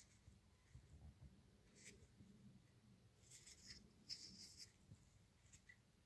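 Near silence, with a few faint scratchy handling noises: fingers turning a small metal rifle oil bottle over on a cloth towel.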